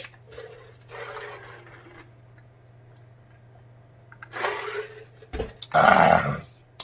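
A man eating and drinking: gulping from a large glass jar, a thump as it comes down, then a loud gruff breathy exhale about six seconds in. A low steady hum runs underneath.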